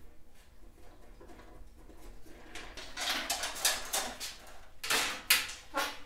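Sheet-metal front cover of an electrical breaker panel being lifted off and carried: it rattles and scrapes in irregular bursts, starting about three seconds in, with the loudest knocks near the end.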